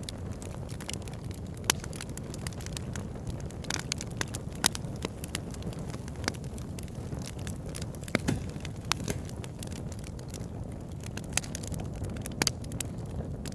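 Campfire burning: a steady low rumble of flames with frequent, irregular sharp crackles and pops of burning wood.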